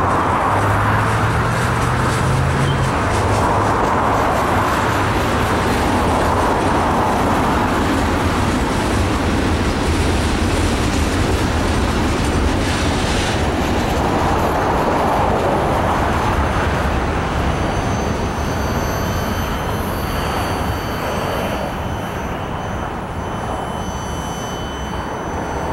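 Freight cars of a passing mixed freight train rolling by, steel wheels rumbling and clattering on the rails. The sound eases a little in the last few seconds as the end of the train goes by.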